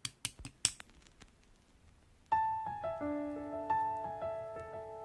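Music: a few quick clicks fade out in the first second, then after a short near-silent gap a piano starts a slow melody of single held notes about two seconds in.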